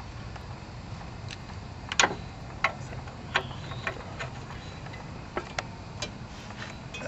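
Hand tools working a bolt loose on a garden tractor: irregular sharp metallic clicks and clinks of sockets and wrenches, the loudest about two seconds in.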